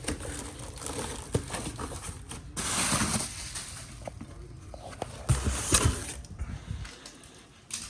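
Packaging rustling and a few light knocks as a wheel is handled and unboxed, in irregular bursts, the longest about two and a half to three seconds in.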